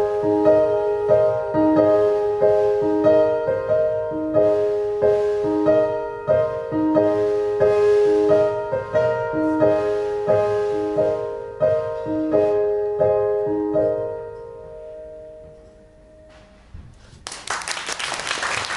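Stage keyboard in a piano voice playing a repeating figure of notes to end the song; the last chord rings and fades out, and about three seconds before the end the audience breaks into applause.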